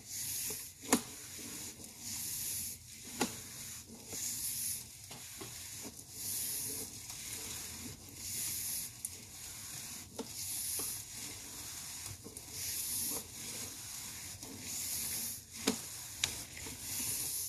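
Sewer inspection camera's push cable rasping in repeated strokes about every two seconds, with a few sharp clicks in between, as the cable is fed or reeled by hand.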